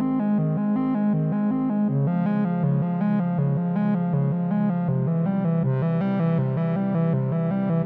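Background music: a quick, evenly repeating pattern of notes on a synthesizer-like keyboard over a steady bass line.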